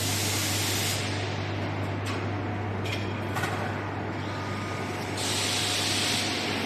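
Air-bubble fruit washing machine running with a steady low motor hum. Loud hiss fills the first second and returns from about five seconds in, with a few short hisses in between.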